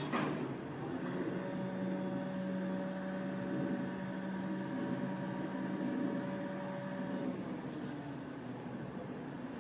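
Steady mechanical hum of a machine, holding one pitch, that starts about a second in and cuts off about seven seconds in; a short click at the very start.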